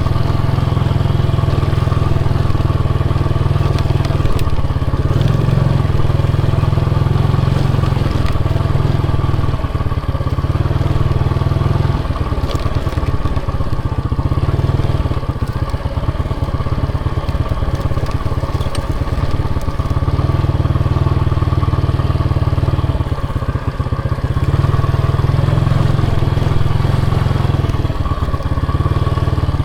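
Motorcycle engine running under way while being ridden, a steady low drone that eases off a few times as the throttle changes.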